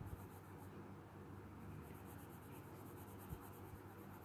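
Faint scratching of a graphite pencil stroking across textured drawing paper as the lower lip is drawn, with a small tap about three seconds in.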